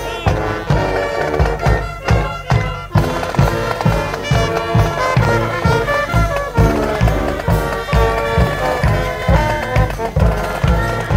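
A marching band's brass and drums playing a lively tune, with the sousaphone and a steady low drum beat of a little over two beats a second under the horns.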